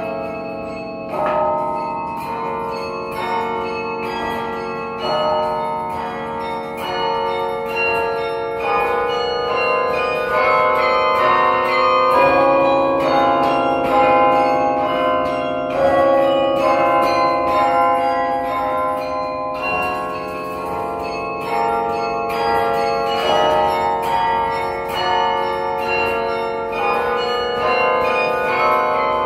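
A 54-bell carillon of tuned bronze bells played from its baton keyboard: many struck bell notes in quick succession, several sounding together and each ringing on under the next.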